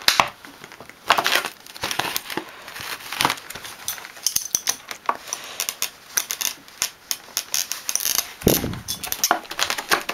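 Stiff clear plastic blister packaging being flexed, crinkled and cut open with a multi-tool knife blade: irregular sharp crackles and clicks, with a dull knock about eight and a half seconds in.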